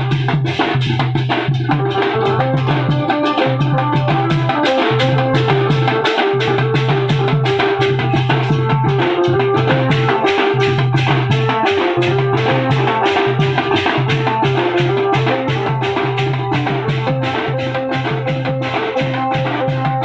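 Koraputia band party music: drums and large brass hand cymbals beat a fast, steady rhythm of about three strokes a second under a stepping melody line.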